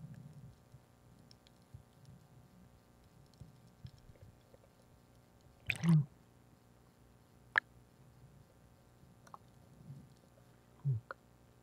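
Sparse sharp clicks and a few muffled knocks heard underwater. The loudest knock, with a low thud, comes about six seconds in, and a second one comes near the end.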